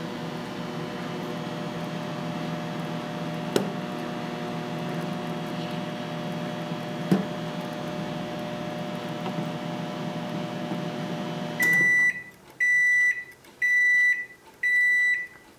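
Microwave oven running with a steady hum, with two brief clicks along the way. The hum cuts off suddenly about three-quarters of the way through and is followed by four high beeps about a second apart, the end-of-cycle signal.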